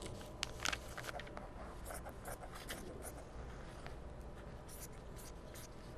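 Faint rustling and scattered small clicks of a paper pattern and heavy upholstery fabric being handled and pinned.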